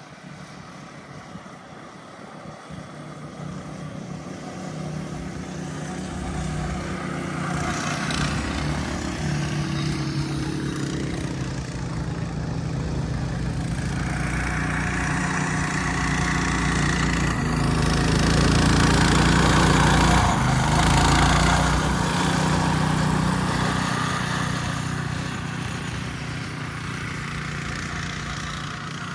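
Small petrol engine of a go-kart or four-wheeler running as it comes closer. It is loudest a little past the middle, then fades as it moves away.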